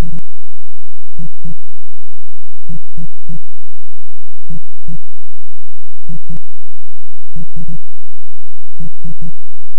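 Synthesized heartbeat from the Amstrad CPC's AY-3-8912 sound chip: about six double thumps, low in pitch and roughly one and a half seconds apart, over a steady hum.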